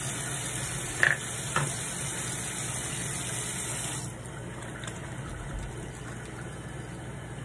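Tap water running into a bathroom sink while soap is lathered in wet hands, with two short knocks about a second in. The hiss drops noticeably about four seconds in.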